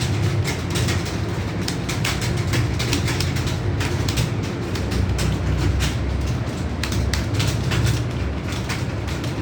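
Many computer keyboards clattering at once as several typists type fast: a dense, irregular patter of key clicks over a steady low hum.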